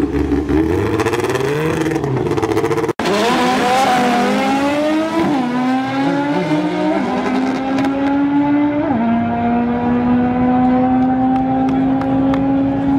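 Naturally aspirated Honda four-cylinder drag car revving at the start line, then launching and pulling hard down the strip. Its engine note climbs and drops suddenly at each of three upshifts, about two seconds apart.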